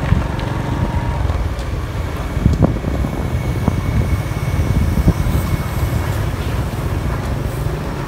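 Motorbike running along a rough dirt road, heard from the rider's seat: a steady low engine and road rumble, with a few sharp knocks between about two and a half and five seconds in.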